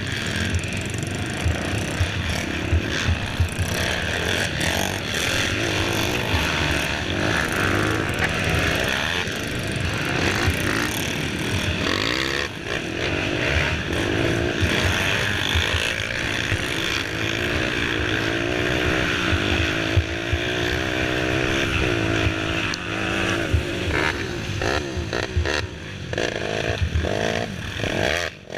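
A youth race quad's engine revving up and down with the throttle, heard from on board, over constant rattling and knocks from the rough trail. The engine pitch rises and falls over and over, with a short drop in loudness near the end.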